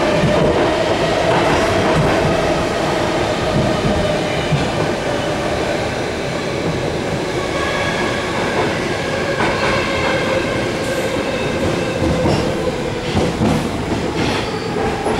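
Stockholm metro C6 car running between stations, heard from inside the car: a steady rumble of wheels and running gear with a motor whine that slowly drops in pitch. A few sharp clicks from the wheels on the track come near the end.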